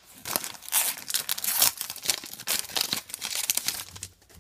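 Foil trading-card pack wrapper crinkling and rustling in irregular bursts as the pack is pulled open and the cards slid out, dying away near the end.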